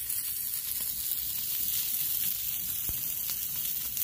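Ribeye cap steaks sizzling steadily on grill grates over a charcoal fire in a Weber kettle, with a few faint pops.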